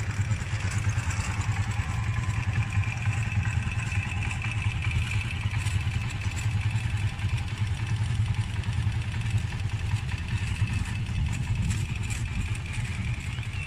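Honda motorcycle's engine running steadily at low revs as the bike is ridden slowly.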